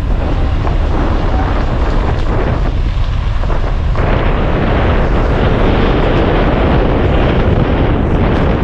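Wind buffeting the microphone with a heavy low rumble, as from a moving car; about four seconds in it gets louder and brighter.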